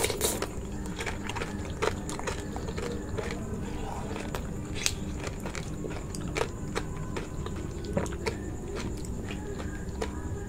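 Raw aloe vera being bitten and chewed close to the microphone, with irregular sharp clicks of mouth and gel.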